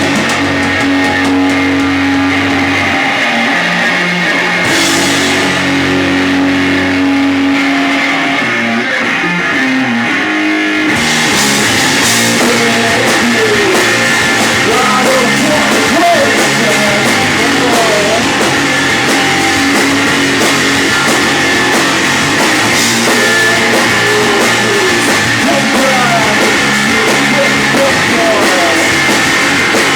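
Rock music with guitar and drums: held guitar notes at first, then the full band with drums coming in about eleven seconds in.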